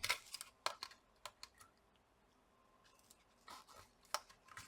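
Light clicks and taps of small plastic parts being handled inside an open laptop as the battery connector is pushed into place: a cluster in the first second and a half, another about three and a half seconds in.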